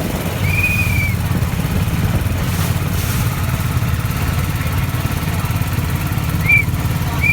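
A small tour boat's engine running steadily with a low rumble. Three short high chirps sound over it, one about half a second in and two near the end.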